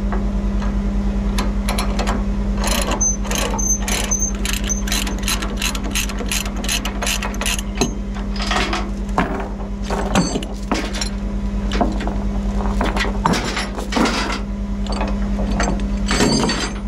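Tie-down chain being released: a ratchet binder clicking quickly for a few seconds, then chain links clanking and rattling as the chain is pulled off. A diesel truck engine idles steadily under it.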